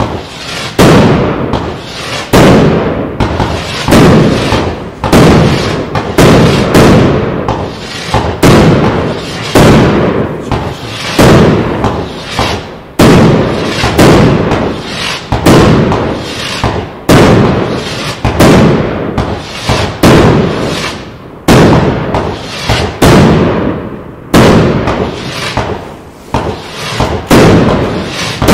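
108-shot firework battery firing its tubes in quick succession: a steady run of sharp bangs, each dying away, roughly one or two a second without a break.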